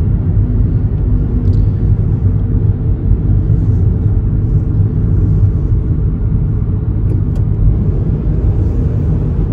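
Steady low rumble of tyre and engine noise heard inside a car's cabin while cruising on a freeway.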